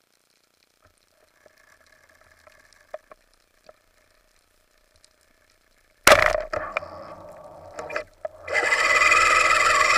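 Underwater, a wooden band-powered speargun fires about six seconds in: a sudden loud crack followed by a few clacks. From about eight and a half seconds a loud, steady rush of water noise follows.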